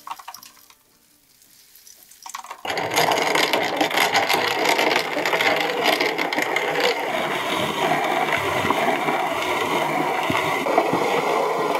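Toasted barley being ground in a hand-cranked cast-iron grain mill: a loud, steady grinding and crunching that starts about three seconds in and keeps going.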